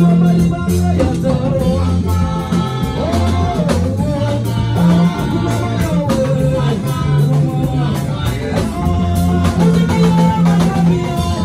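Live Congolese gospel worship song sung in Lingala: several singers on microphones over keyboard, a deep repeating bass line and drum kit.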